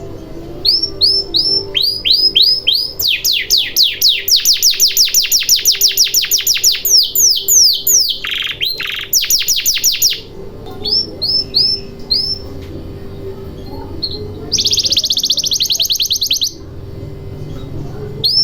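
Domestic canary singing in rolls of fast, repeated downward-sweeping notes. A short harsh buzzy phrase comes about halfway through, and a very rapid trill near the end.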